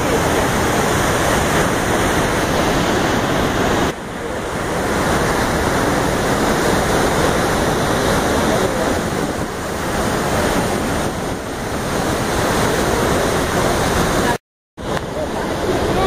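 Steady rush of Iguaçu Falls, heavy water falling and churning. It dips at a cut about four seconds in and drops out for a moment near the end.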